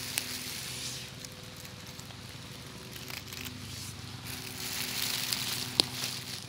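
Dry fallen leaves and twigs rustling and crackling as someone moves through woodland leaf litter, with one sharp click near the end.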